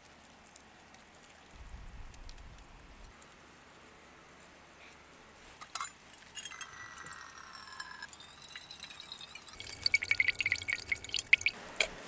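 Water trickling off a rock face into a small metal camping kettle, with ringing tones as it fills. This is followed by a run of sharp metal clinks and rattles from the kettle and its lid, the loudest part coming near the end.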